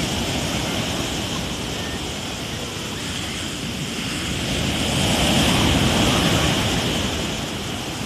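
Rough sea: waves breaking and washing up the beach in a continuous rush of surf, growing louder a little past the middle and easing near the end.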